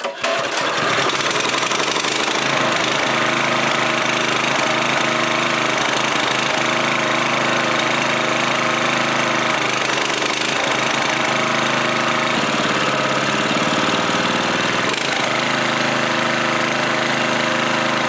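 196cc Honda-clone single-cylinder OHV small engine running steadily at a fast idle, its speed dipping and recovering briefly about two-thirds of the way through. It will only run on half choke because its carburetor's main jet is clogged.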